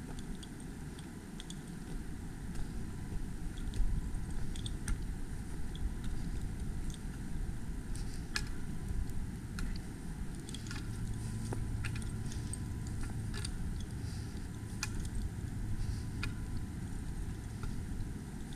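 Footsteps through forest undergrowth: scattered twig snaps and rustling over a low rumble on the microphone. A low steady hum joins about ten seconds in and fades out a few seconds before the end.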